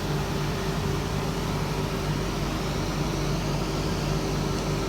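Commercial heat pump dryer running just after being switched on: a steady, even hum with a low drone and the airy rush of its circulation fans.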